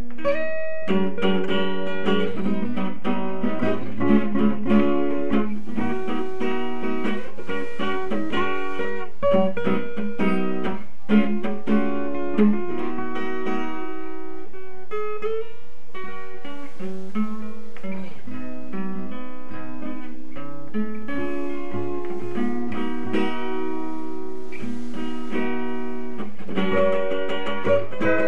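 Background music played on acoustic guitar, a steady run of plucked notes and strummed chords.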